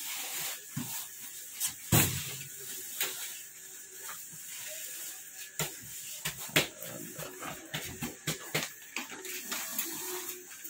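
Heavy woven-plastic sacks being dragged, lifted and set down in a pickup truck's bed: scattered thumps and rustling, with the loudest thumps about two seconds in and again past the middle.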